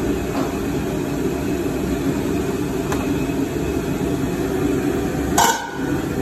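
High-output gas burner (plum-blossom burner) burning on high flame under a stockpot, with a steady low rushing noise. About five and a half seconds in, there is a sharp metallic clink as the stainless steel lid is lifted off the pot.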